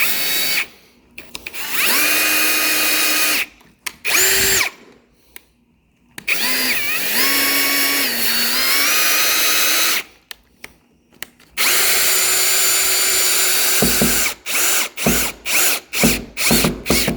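Power drill driving a screw through a metal door strike plate into the jamb. The motor whine comes in several runs that rise to speed and hold, with pauses between, and ends in a string of short trigger bursts.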